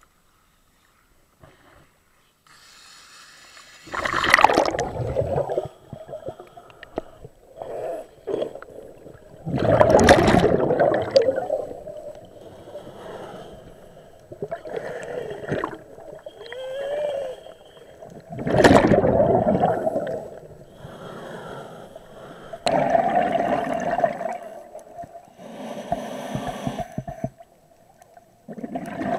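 Scuba regulator breathing underwater: a faint hiss on each inhalation, then a loud gurgling burst of exhaled bubbles, repeating every six to eight seconds.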